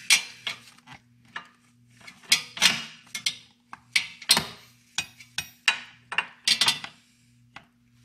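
Irregular light metal clinks, taps and scrapes as a chrome Kuryakyn extended brake pedal and its bushing are handled and worked onto the brake pivot shaft.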